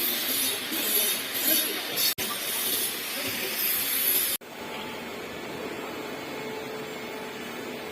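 Automatic MAG welding arc at a conveyor roller's pipe end, a steady hiss. The sound cuts off abruptly about two seconds in and again about four seconds in, and after the second cut the hiss goes on quieter, with a faint hum beneath it.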